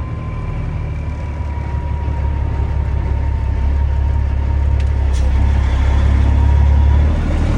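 Semi truck's diesel engine running as the truck rolls slowly ahead: a deep steady drone that grows louder, then drops off suddenly near the end, with a faint high whine over it.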